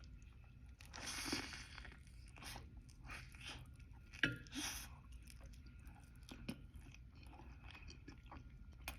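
A person chewing a mouthful of pulled pork sandwich with crunchy, wet bites in irregular bursts, loudest about a second in and again around four seconds in, where there is a sharp click.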